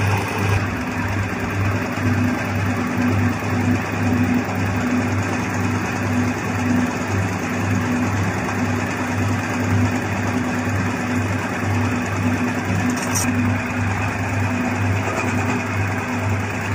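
Chief 295 two-cylinder diesel engine running steadily with its freshly repaired fuel pump fitted, a steady throb pulsing a little over twice a second.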